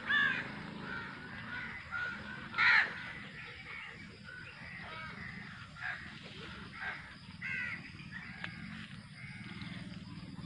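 Birds calling in a series of short, harsh calls, the loudest about two and a half seconds in, over a faint steady low hum.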